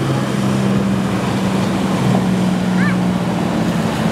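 Boat engines running with a steady drone that shifts slightly in pitch about halfway through, over rushing wind and water noise.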